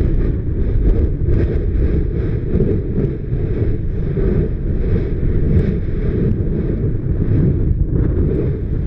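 A steady, loud low rumble of wind buffeting the microphone, over the roar of Yasur volcano's vent as it continuously spatters lava. No single big blast stands out.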